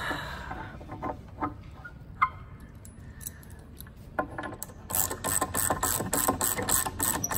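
A bolt being turned down through the hole in a wooden bowsprit into the cap rail: a few light knocks and a brief squeak, then from about four seconds in a quick, regular clicking, about four to five clicks a second.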